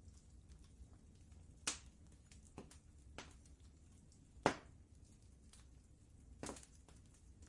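Wood fire crackling in a fireplace: a few sharp, irregular pops over a low steady rumble, the loudest about four and a half seconds in.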